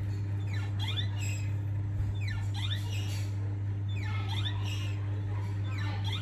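Baby macaque giving repeated high, thin squeaking calls, each a quick rise and fall in pitch, coming in clusters about once a second over a steady low hum.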